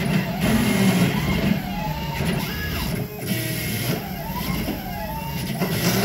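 Stepper motors of a DIY CNC router driving its axes through a test program, their whining tones gliding up and down in pitch as the axes speed up and slow down, over a steady low hum from the machine. The drivers are set first to 1/4 microstepping and, after a brief dip partway through, to 1/16 microstepping.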